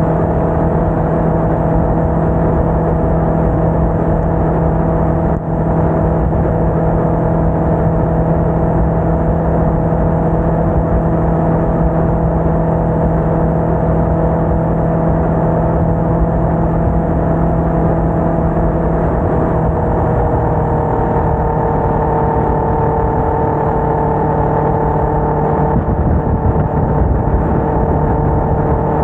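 Motorcycle engine running at a steady cruise under heavy wind noise on the bike-mounted microphone. About twenty seconds in, the engine note shifts slightly.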